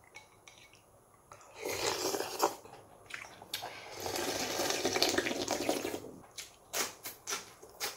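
Wet eating sounds from a bowl of cold raw-fish soup (mulhoe): two stretches of slurping, the second longer, then a few short clicks near the end.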